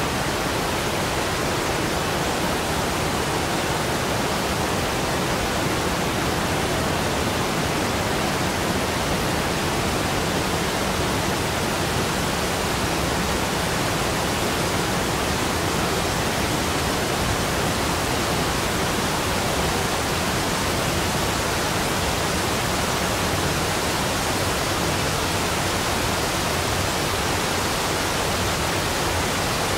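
Floodwater pouring out of a dam's spillway outlets: a steady, even rushing of water.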